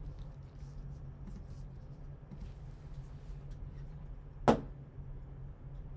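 Steady low hum with faint small handling clicks, then one sharp clack about four and a half seconds in as a hard plastic trading-card holder is lifted off a stack of other cased cards.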